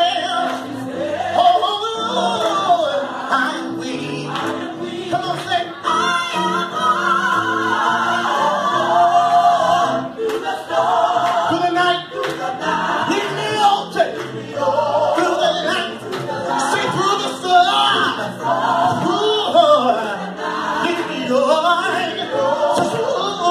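Gospel choir singing with mixed voices: a lead voice moves over the group's held harmonies and low notes.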